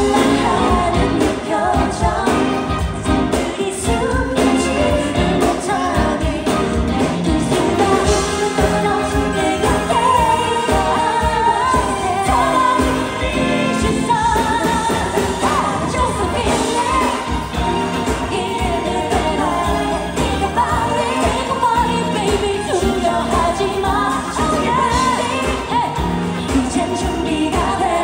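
Live K-pop performance: a woman sings into a handheld microphone over loud, continuous pop backing music.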